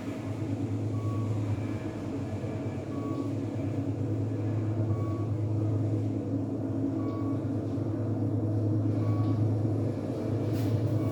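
Kone elevator cab with a steady low hum and rumble of machinery, and a short high beep repeating about every two seconds. A few sharp clicks come near the end.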